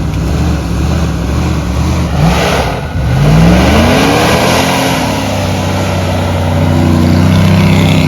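An off-road vehicle's engine revving hard in deep snow. The pitch climbs steeply about two to three seconds in, with a rush of noise, and is then held at high revs.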